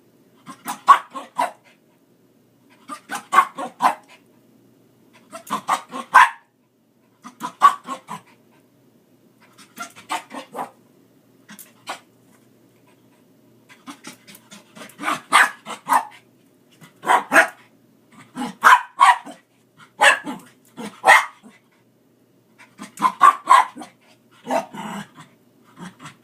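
Dog snapping and barking in quick flurries of several sharp sounds, each flurry about a second long and repeating every two seconds or so, as it bites at dust.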